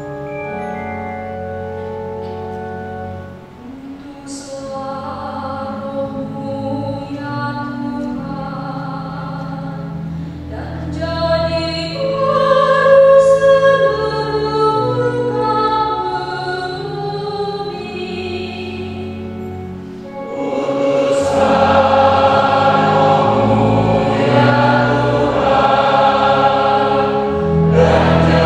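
Organ playing held chords, then a responsorial psalm refrain sung over the organ, louder and fuller from about twenty seconds in.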